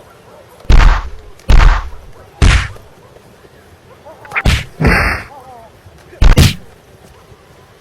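A string of loud, heavy punch-and-kick impact sound effects for a staged fight: six hits over about six seconds, each a sharp blow with a short decay. The fifth, about five seconds in, is longer and hissier than the rest.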